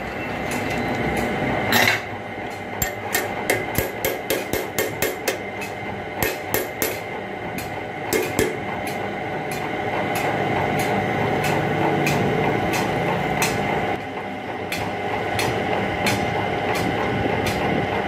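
Steady hum of lathe and workshop machinery, with a run of quick sharp taps, about four to five a second, through the first half.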